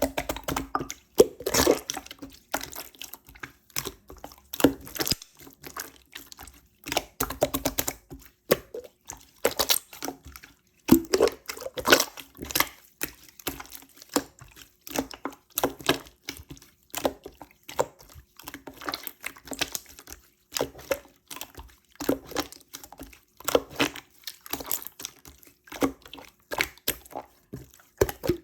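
Slime being squeezed, folded and stretched by hand, giving a continuous irregular run of wet clicks, pops and squelches.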